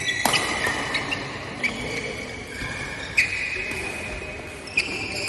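Badminton rally: rackets striking the shuttlecock four times, about one and a half seconds apart, with a high squeaking tone ringing on after each hit.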